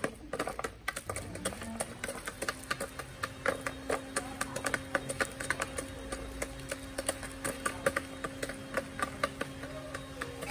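Chickens pecking feed, their beaks tapping the ground and a plastic feeder in rapid, irregular clicks, several a second. A low steady hum comes in about two seconds in, rising in pitch at first and then holding.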